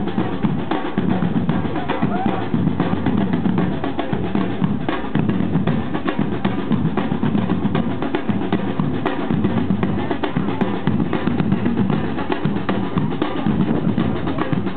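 A samba drum band plays together: large surdo bass drums and smaller drums beat a dense, driving rhythm without a break.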